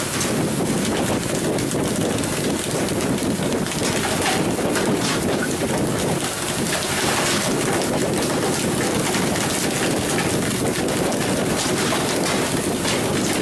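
Steady hiss of water jets from the fishing boat's sprinklers spraying and pattering onto the sea surface alongside the hull, mixed with wind.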